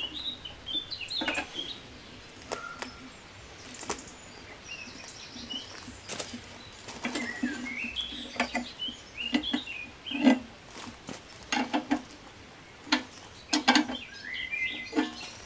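Irregular light knocks and clinks of metal parts being handled and bolted on: a mower's fuel tank and steel handlebars. Small birds chirp in the background throughout.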